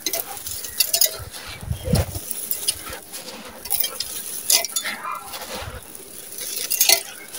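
Dry sand-cement lumps with small stones crushed and crumbled by bare hands: irregular gritty crunching and crackling, with stones clinking against each other, and a soft thump about two seconds in.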